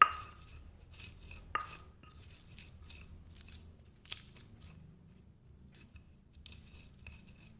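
Stone pestle crushing and grinding shallots, garlic and salt in a stone mortar (Indonesian cobek and ulekan): a sharp knock of stone on stone at the start and another about a second and a half in, then irregular scraping and crunching strokes.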